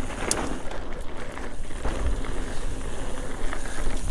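Mountain bike running fast down a dirt singletrack: wind buffeting the helmet or handlebar camera microphone, with tyre noise on the dirt and a few sharp clicks and knocks from the bike over bumps.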